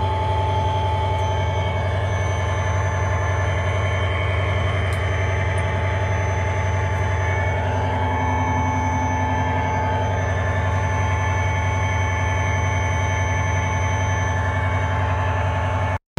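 A heavy engine or machine running steadily: a constant deep hum with several steady higher tones over it.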